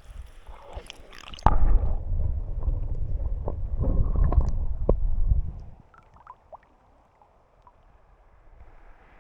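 Muffled water sounds, as heard by a submerged or housed camera: a loud low rumbling and gurgling with scattered clicks, which starts abruptly about a second and a half in and fades out a few seconds later.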